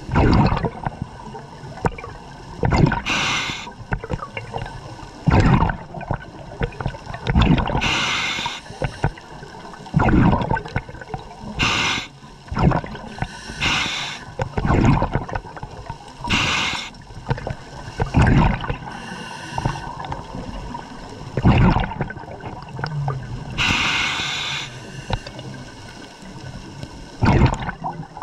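Scuba diver breathing through a regulator underwater. Hissing inhales alternate with bubbling exhales, a breath every three to four seconds.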